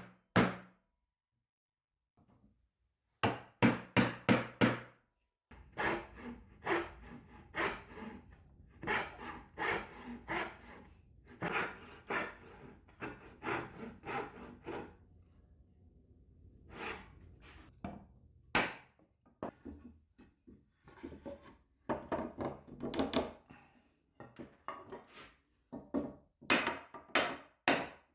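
Hand tool working wood in runs of quick, repeated back-and-forth strokes, with short pauses between the runs.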